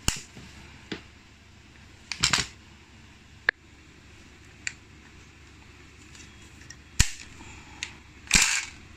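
Sharp plastic-and-metal clicks and clacks from a PPS XM26 airsoft shotgun as its magazine is pushed in and its receiver is handled. About eight separate snaps come at uneven intervals, the loudest near the end. The magazine catch hook is bent, so the magazine does not latch firmly.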